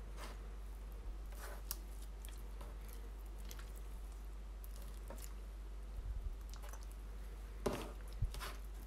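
Melted, over-sticky slime being pressed and pulled apart by hand as a little activator is worked in: faint, scattered wet clicks and squelches, a few stronger ones near the end, over a low steady hum.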